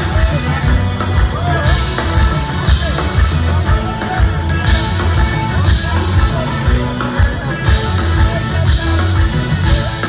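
Live band playing an Ethiopian pop song, loud and steady: electric guitar, keyboard and drum kit over a heavy bass line, with regular cymbal hits and a man singing over it.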